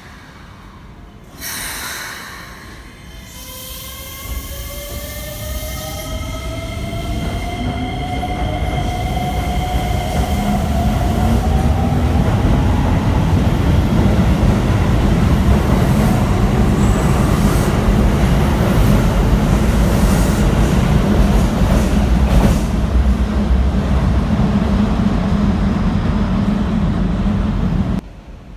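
Electric commuter train pulling away with its inverter motors whining in several tones that rise as it gathers speed, after a brief hiss near the start. A loud, steady rumble of wheels on rail follows as the cars run past, and it cuts off suddenly near the end.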